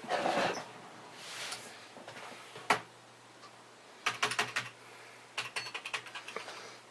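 Computer keyboard keys tapped repeatedly in two quick runs of clicks, after a single sharper click.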